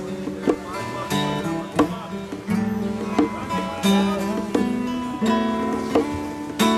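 Two acoustic guitars playing together: chords strummed with sharp attacks, with picked notes ringing between the strums.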